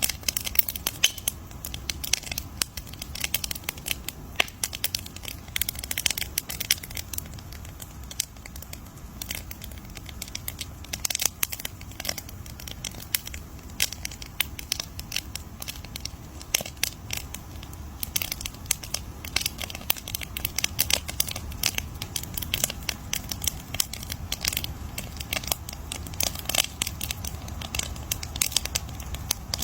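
Wood fire crackling, with dense irregular pops and snaps over a low steady rumble.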